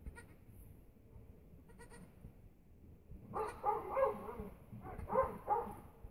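Nubian goat bleating: a bleat lasting about a second, starting about halfway through, then two shorter bleats close together.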